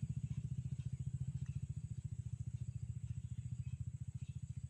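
An engine running with a steady, rapid low throb, slowly fading.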